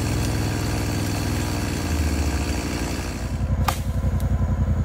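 Side-by-side UTV engine running steadily at low revs, with a sharp click about three and a half seconds in.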